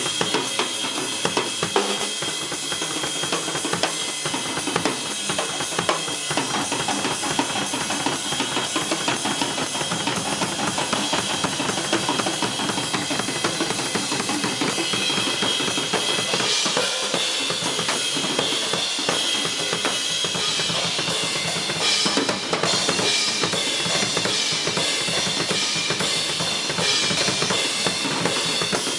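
Solo drum kit played fast and dense: rapid snare and tom strokes over bass drum, with cymbals washing steadily over them, the cymbal wash growing fuller in the second half.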